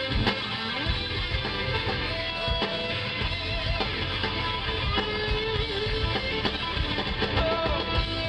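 Live rock band playing through a PA, with electric guitar to the fore over bass and drums, heard from within the crowd. Held guitar notes ring out through an instrumental stretch.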